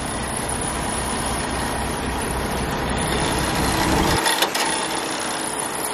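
Semi truck's diesel engine idling with a steady low pulsing beat, heard close with the hood open. About four seconds in the engine sound drops away abruptly, leaving a steady hiss.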